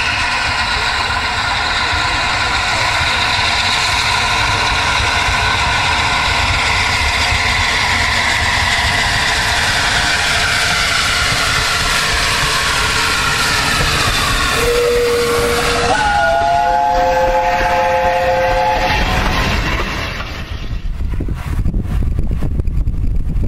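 Three-cylinder LNER Peppercorn A1 Pacific 60163 Tornado working a train, its steady running noise slowly falling in pitch. About fifteen seconds in its steam whistle sounds: a short single note, then a three-note chord held for about three seconds. Near the end, wind buffets the microphone.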